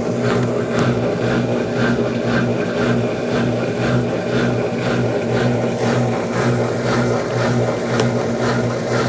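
Consul Facilite 10 kg washing machine running mid-cycle: a steady motor hum with faint, regularly repeating pulses.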